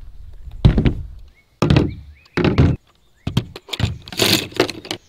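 Crossbow parts set down one after another on a plastic folding table: three heavy thunks about a second apart, then a quicker run of knocks and clatter near the end.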